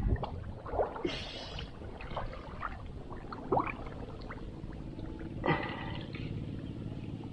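Two brief splashes of shallow water, about a second in and again past five seconds, with small clicks of the fishing rod and line being handled.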